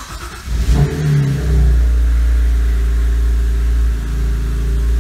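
BMW N52B25 2.5-litre straight-six in a 325i E92, started for the first time after valve-lift spacers were fitted: it cranks briefly, catches under a second in with a short rise in revs, then settles into a steady idle with no bad noises.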